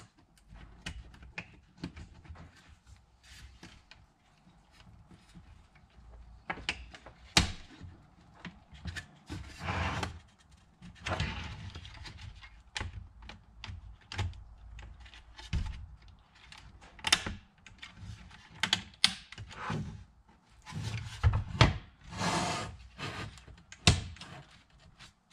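Plastic housing of a Totally Integrated Power Module (TIPM) being handled and slid back together over its pins: irregular clicks and knocks of hard plastic, with a couple of longer scrapes.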